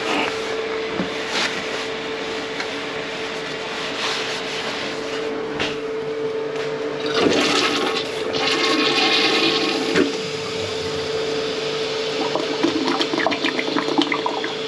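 Toilet flushing with toilet paper in the bowl as a test of a slow-flushing toilet: water rushes steadily, getting louder for a few seconds about halfway through.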